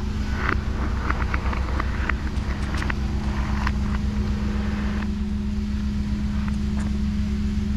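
Ambient drone music: a steady low electronic hum with one held tone, crackles and clicks scattered through the first half, and a faint higher tone coming in about five seconds in.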